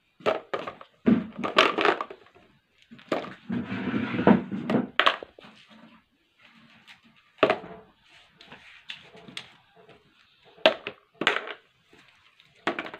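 Small plastic toys knocking and clattering in the plastic bed of a toy dump truck as they are dropped in and handled, with a longer rattling stretch about three seconds in and several single sharp clacks later.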